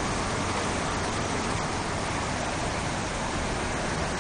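Floodwater of a river in spate rushing and churning past, a steady unbroken noise of turbulent water.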